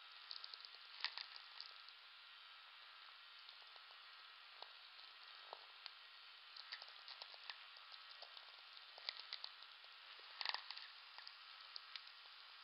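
VLF natural-radio receiver audio: a steady hiss with crackling sferics, the clicks and pops of distant lightning strikes. The densest, loudest bursts of clicks come about a second in and again near the end.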